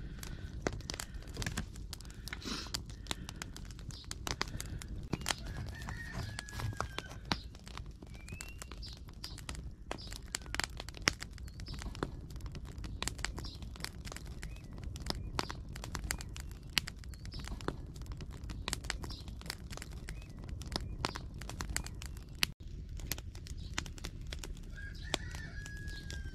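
Wood cooking fire crackling, with irregular sharp pops over a low steady rumble. A bird gives a short chirping call a few times.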